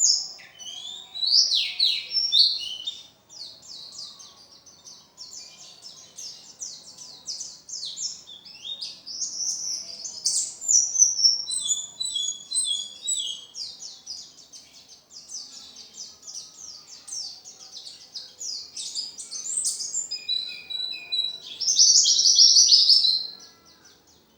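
A pleci (white-eye) singing a fast, unbroken song of high chirps and trills, with a varied, full repertoire. The song is louder a few times and stops just before the end.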